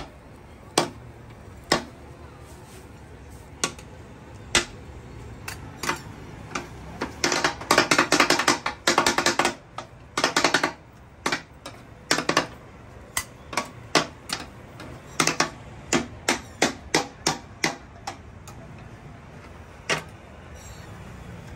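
A knife chopping meat on a cutting board: scattered single chops, with two fast runs of rapid strikes around the middle.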